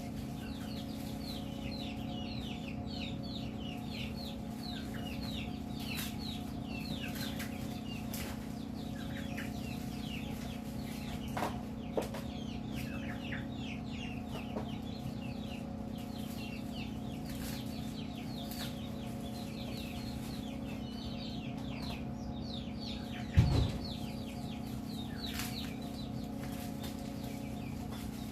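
Chicks peeping: many short, high, falling calls in quick runs, over a steady low hum. A sharp thump about 23 seconds in, and a couple of clicks near the middle.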